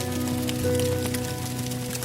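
Music with slow, held notes and chords, over the irregular crackle of a wood campfire.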